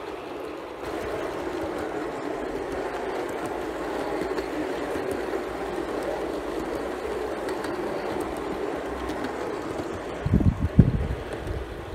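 Gauge 1 live-steam model train running along garden track, a steady rolling rumble of its wheels on the rails. About ten seconds in, wind starts buffeting the microphone in loud low gusts.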